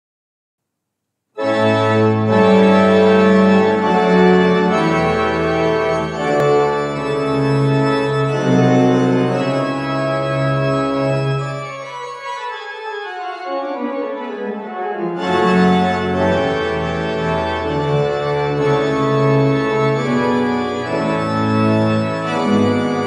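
Pipe organ playing a Christmas voluntary in full chords over deep sustained bass notes, starting about a second in. About twelve seconds in the bass drops out and a run falls steadily in pitch, then the full sound with the bass returns about three seconds later.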